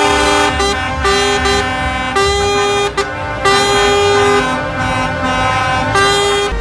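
Truck air horns sounding loudly, a held chord with shorter notes changing pitch on top, stopping and starting several times in a horn tune.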